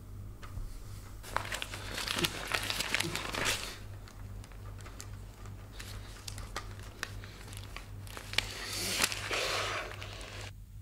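A sheet of lined notebook paper handled and crumpled in the hands: crackling rustles with sharp crinkles, one stretch starting about a second in and lasting a couple of seconds, another shorter one near the end, over a low steady hum.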